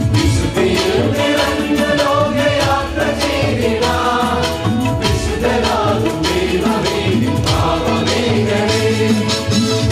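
Male church choir singing a hymn in unison through microphones, over a steady beat.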